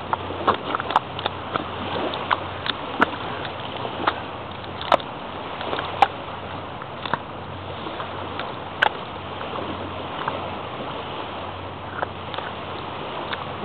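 Bare feet squelching in soft, wet mud, with irregular sharp wet pops and sucks as the feet pull free and press back in, over a steady background hiss.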